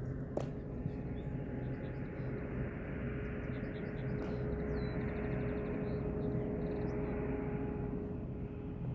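Steady outdoor background hum carrying a faint steady tone, with a small bird singing a run of short high chirps and a quick trill in the middle. A sharp click sounds near the start.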